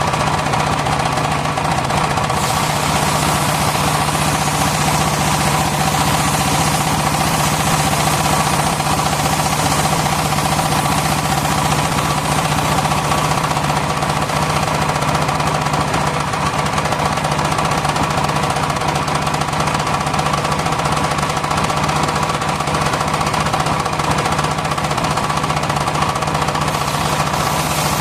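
Circular sawmill running with a steady, loud machine hum. A brighter hiss joins about two seconds in and drops away near the end.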